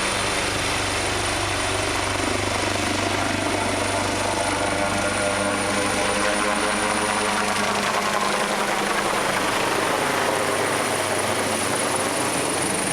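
Helicopter lifting off and flying away, its rotors and engine running steadily; the low rumble fades from about eight seconds in as it climbs away.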